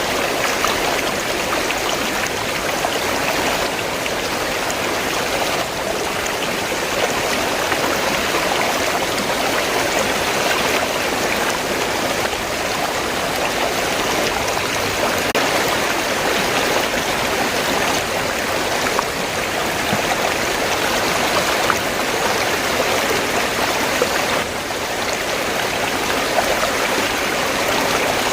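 River water flowing steadily, an even rushing babble with no breaks.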